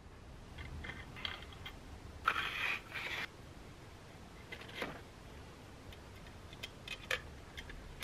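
Bicycle headset parts being fitted by hand on the fork's steerer tube: a scraping slide lasting about a second, starting about two seconds in, and scattered light metallic clicks and ticks as the stem, spacers and top cap go on.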